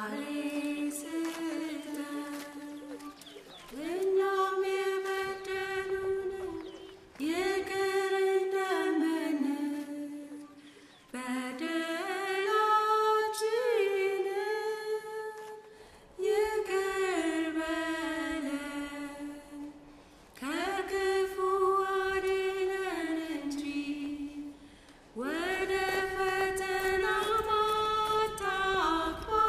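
A single unaccompanied voice singing a slow chant-like song: about seven long held phrases, each sliding and wavering in pitch, with short breath pauses between them.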